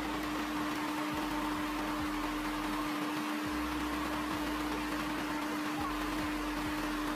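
Steady machinery hum with one constant droning tone over an even rushing noise.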